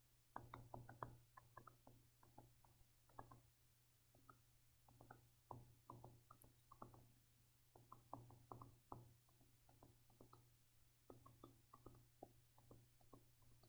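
Faint, irregular taps and scratches of a stylus writing numbers on a tablet screen, coming in short clusters with brief pauses between them.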